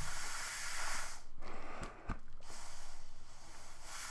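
A bag-valve-mask resuscitator being squeezed by hand, pushing rushes of air out through the pocket mask with a hissing whoosh, about three in a row, with a few faint valve clicks.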